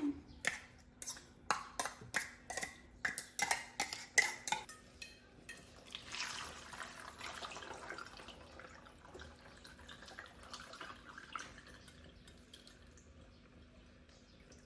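A quick series of clicks and clinks, then liquid running or pouring for about five seconds before fading away.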